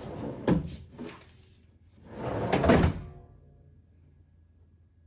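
A large pull-out drawer on slide rails being worked. Two knocks come about half a second and one second in, then a longer rolling slide from about two seconds in that ends in a knock.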